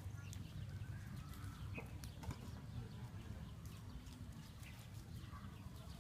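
Faint outdoor ambience: a steady low rumble with scattered small clicks and a couple of short high chirps.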